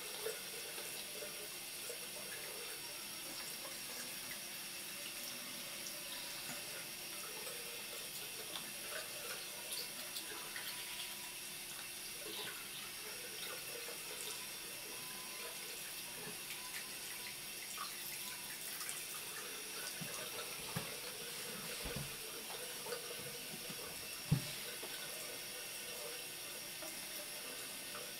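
A thin stream of water from a washbasin faucet running and splattering into the sink while a Bengal cat paws at it and drinks from it. Two dull knocks come about three-quarters of the way through, the second louder.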